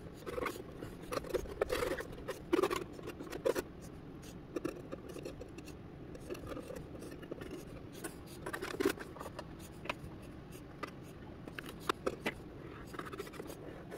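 Thin metal pick scraping and ticking against a carbon-fibre battery tray and hull as thickened epoxy is pushed into the seams: irregular light scrapes and clicks.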